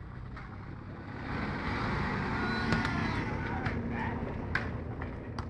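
A car driving past, its tyre and engine noise swelling to a peak and fading away over about four seconds, with a few sharp knocks along the way.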